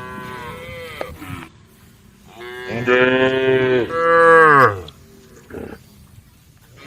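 Cows mooing: one call trails off about a second in, then a louder, long moo that drops in pitch at its end.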